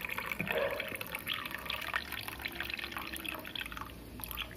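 Herbal decoction pouring in a stream from a steel vessel into a glass already holding some liquid, splashing and trickling as the glass fills, tapering off near the end.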